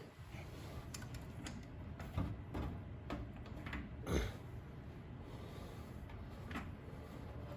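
Metal tools and parts being handled while a dial indicator is positioned: a few light clicks and knocks, the loudest about four seconds in, over a low steady hum.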